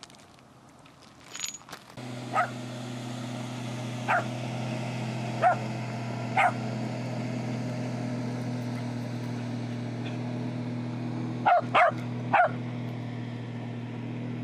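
A small dog barking: four single barks a second or two apart, then three in quick succession near the end. Under the barks, the steady drone of a motorboat's engine starts about two seconds in.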